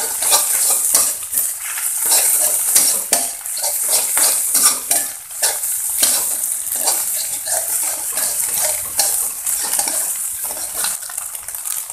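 Scrambled egg, meatballs and sliced sausage sizzling in hot oil in a wok, stir-fried with a metal spatula that scrapes and clinks against the pan in quick irregular strokes.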